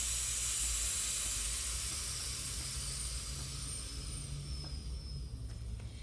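Air hissing out of an ATV tire through the open valve stem with the valve core removed, slowly fading as the tire goes flat.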